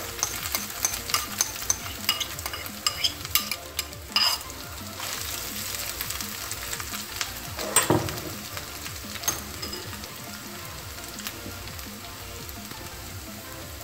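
Grated coconut frying in hot coconut oil in a kadai, with a steady soft sizzle. Quick clicks and taps come in the first few seconds as the coconut goes in, and a single knock comes about eight seconds in.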